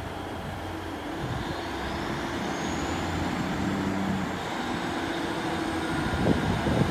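A Class 150 Sprinter diesel multiple unit coasting into the platform, its underfloor diesel engines running steadily and growing slowly louder as it approaches. A faint high whine rises in pitch over the first few seconds and then holds, and wheel knocks begin near the end.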